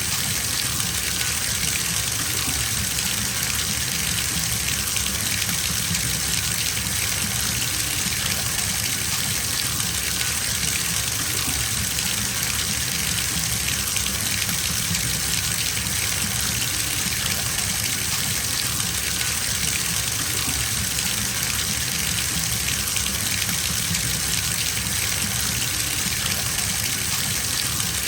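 Tap water gushing steadily into a filling bathtub, an even, unbroken rush of splashing water.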